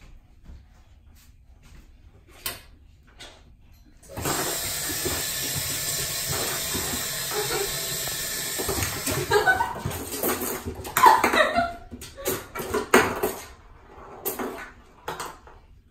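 Rushing water in household plumbing, starting suddenly about four seconds in and running steadily for several seconds, then growing uneven with louder sounds over it before fading near the end. Before it, a few light knocks of a small toy ball in an empty bathtub.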